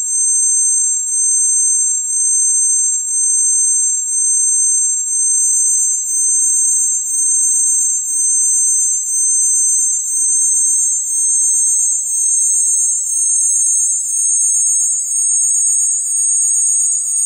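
Electronic background music: high, piercing, alarm-like synth tones that pulse about once a second. A warbling tone comes in about five seconds in, and a line of notes steps downward through the second half.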